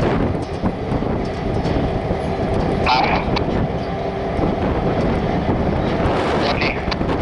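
CN freight train's cars rolling slowly past, a steady rumble of steel wheels on rail.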